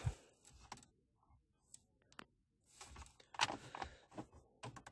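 Plastic rotary knobs on a Renault Megane 2 heater and climate control panel being turned by hand, clicking through their detent steps, with light handling rattle. The clicks show the knobs are seated and working properly after reassembly.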